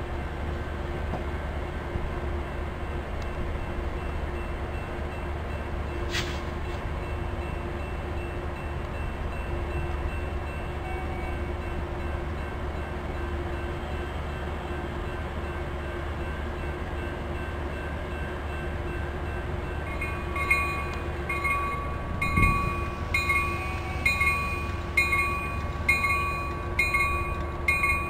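Sounder commuter train rumbling steadily at the station platform. About twenty seconds in, a bell starts ringing at roughly one and a half strokes a second.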